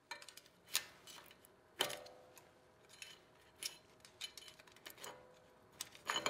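Steel picks clicking and scraping against the greasy metal parts of a Ford Dana 44 automatic locking hub as the hub assembly is worked out. Light scattered clicks, with sharper metal clinks that ring briefly about two seconds in and near the end.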